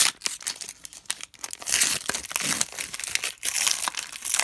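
Wrapper of a hockey card pack being torn open and crinkled by hand, in a dense run of crackling that is loudest about two seconds in and again near the end.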